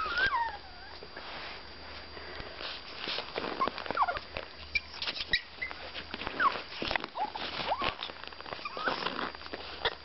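Young Pomeranian dog whining, a series of short high whines that rise and fall in pitch, about half a dozen of them, amid scattered clicks and scuffs.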